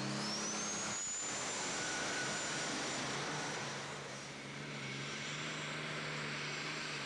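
John Deere super stock pulling tractor's turbocharged diesel engine running flat out under load as it pulls the weight sled, with a steady engine drone and a high turbo whine that climbs during the first second and then holds.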